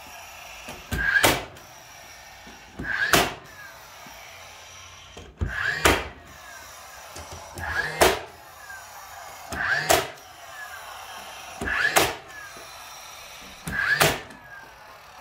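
Cordless battery-powered nailer firing nails into wood window trim, seven shots about two seconds apart. Each is a quick whir building into a sharp crack, followed by a short falling whine.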